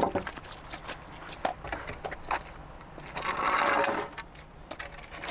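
Wooden 2x4 framing boards knocking and clattering as they are handled, with a louder burst of noise lasting under a second about three seconds in.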